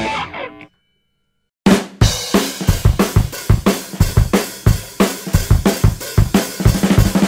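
Background rock music: a guitar-led passage slides down in pitch and dies away. After about a second of silence, a drum-kit beat starts and keeps a steady rhythm.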